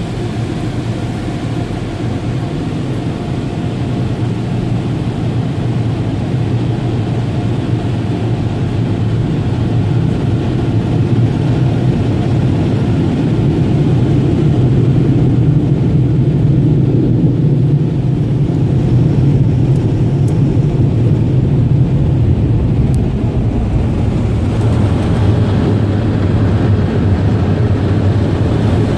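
Car wash air-dryer blowers running steadily, heard from inside the vehicle. The noise grows louder over the first dozen seconds and then holds steady.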